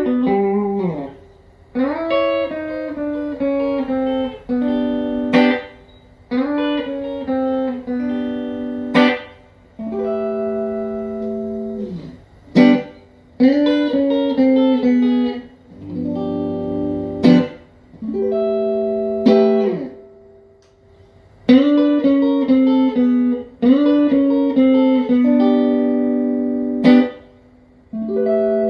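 Clean electric guitar, a Fender Player Plus Telecaster through a Fender Tone Master Super Reverb amp, playing short ringing chord phrases of about two seconds each with brief gaps between them. Several phrases end in a sharp muted string hit.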